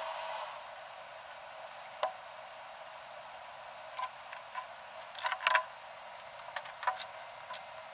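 A few light clicks and taps of small parts and tools being handled on a workbench mat, with a cluster of them a little past the middle. Under them is a steady faint hiss.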